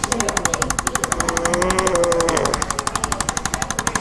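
Rapid, even mechanical tapping of a chiropractic percussion device, about ten taps a second. Between about one and two and a half seconds in, a short humming tone sounds over the tapping.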